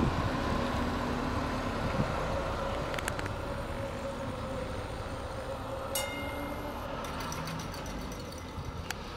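Class 715 diesel multiple unit, two sets coupled, running as it pulls away, its engine sound fading gradually. A short sharp click about six seconds in.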